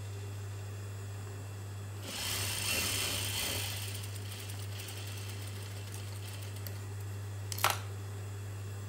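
JUKI industrial sewing machine stitching fabric in one run of about two seconds, starting about two seconds in, over a steady low hum. A single sharp click comes near the end.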